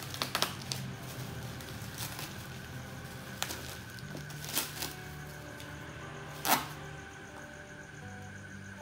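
Plastic packaging crinkling and crackling as a package wrapped in plastic is cut open and pulled off by hand. There are several sharp crackles, the loudest about six and a half seconds in, over a steady low hum.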